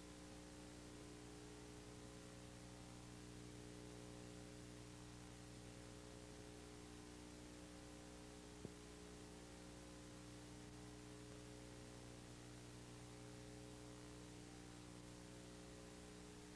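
Near silence: a faint, steady electrical hum with background hiss, broken once by a short click about halfway through.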